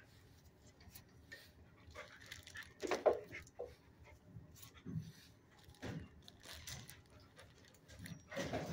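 A dog moving about a kennel floor, sniffing as it searches, with short irregular bursts that are loudest about three seconds in and near the end.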